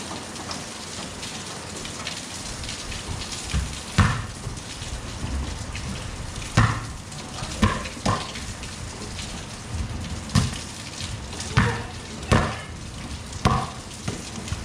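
Steady rain falling on a wet outdoor concrete court, with about eight irregular sharp thumps over the second half.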